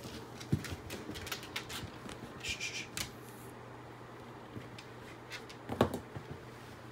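Corgi's claws and a man's shoes scuffling and clicking on a tile floor as the two move around a food bowl, with a short hiss about two and a half seconds in and a louder knock near the end.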